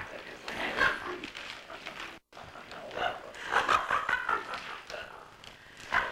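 Several women laughing hard in irregular bursts, with a brief dropout in the sound a little over two seconds in.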